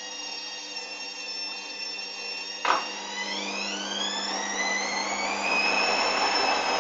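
Hoover Dynamic washing machine's motor whining steadily. Partway through there is a sharp click, and then the motor speeds the drum up with a rising whine that climbs for about three seconds and then levels off.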